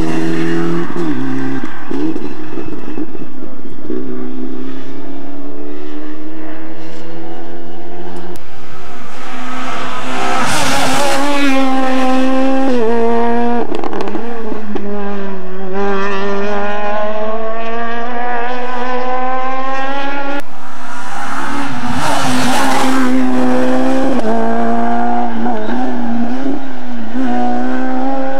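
Rally car engines at full throttle on a tarmac stage, the note climbing and dropping again and again through gear changes as the cars come through. There are two loud rushes, about ten seconds in and again a little past twenty seconds.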